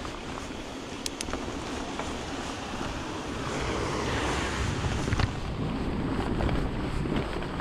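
Mountain bike ridden along a leaf-covered dirt trail: a steady rush of tyre noise and wind on the microphone, growing a little louder about halfway, with a few sharp clicks from the bike.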